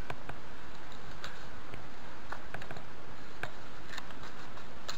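Light, irregular metal clicks of pliers and a tyre-plug reamer being handled at a moped tyre while trying to grip and pull out a nail, about ten in all, over a steady hiss.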